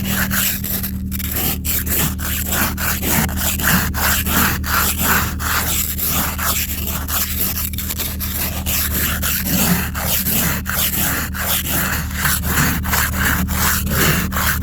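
Hand ice scraper scraping thick ice off a car's glass in quick repeated strokes, about three a second, with a steady low hum underneath.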